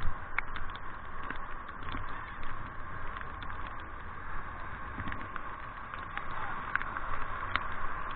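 Whitewater river rapids rushing past a raft: a steady hiss of moving water with scattered sharp ticks of splashes.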